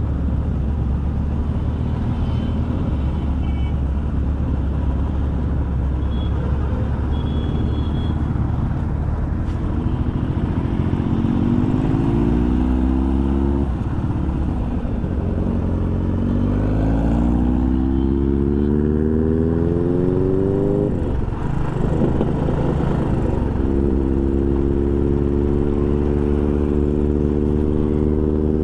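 Royal Enfield motorcycle engine running on the road, pulling up through the gears. Its pitch climbs and drops back at a shift twice, then rises once more and holds steady near the end, over a constant low rumble.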